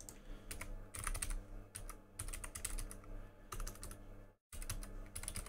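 Typing on a computer keyboard: irregular runs of key clicks with short gaps between them, and a brief pause about four seconds in.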